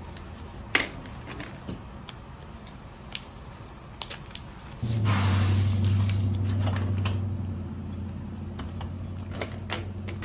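Small metal items such as keys and padlocks clink and rattle with a few sharp clicks. About halfway in, a louder low, steady hum starts with a brief hiss and keeps running.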